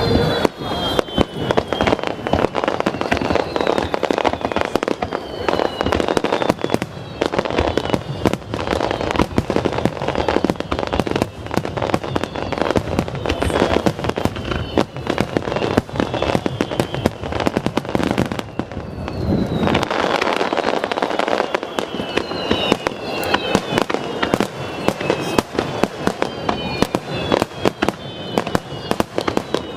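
Aerial fireworks shells bursting in a dense, rapid run of bangs. Several high whistles fall in pitch near the start and again in the last third. The deep booms thin out about two-thirds of the way in.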